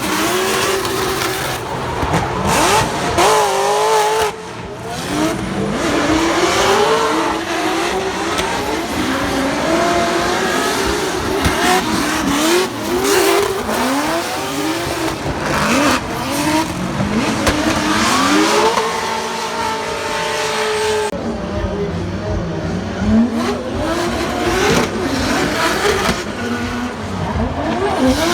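Drift car engines revving hard, pitch rising and falling over and over as the throttle is worked, with tyre squeal from cars sliding.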